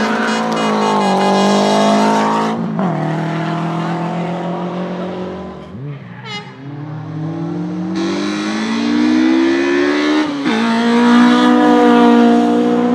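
Car engine accelerating hard on a race track, pitch climbing through the revs with a gear change about two and a half seconds in. It falls away to a quieter lull midway, then climbs steadily again to another gear change near the end.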